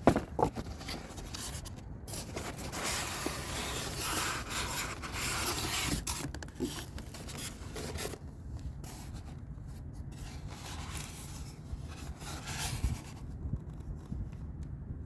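Rubbing and scraping of cardboard and plastic packaging as a model airplane box is handled and opened.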